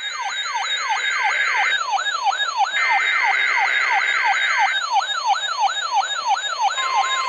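Weather alert radio's electronic siren alarm, a rapid falling whoop repeated about four times a second. Under it the NOAA Weather Radio test broadcast plays two bursts of EAS/SAME header data, a buzzing two-tone warble. Near the end a steady single-pitch weather radio alert tone starts.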